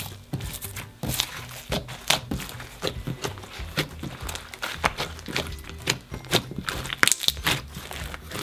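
Blue slime loaded with foam beads being squeezed and kneaded by hand: a quick irregular run of sharp crackles and pops, several a second, over background music.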